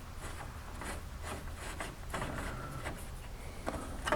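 Faint, scattered small clicks and scrapes of a screwdriver working a small screw out of a headlight bezel, over a low steady hum.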